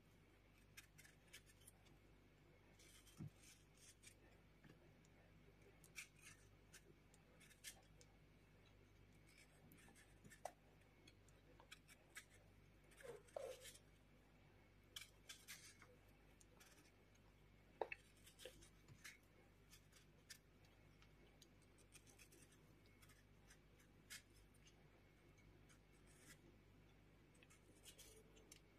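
Near silence broken by faint, scattered scrapes and ticks of a small paring knife cutting the skin off a kiwi, over a low room hum.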